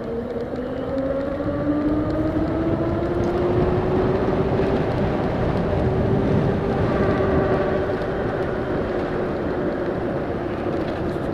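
HappyRun electric bike's motor whining as it picks up speed, the pitch rising over the first few seconds and then holding steady at cruise. Underneath is a steady rush of wind and road noise.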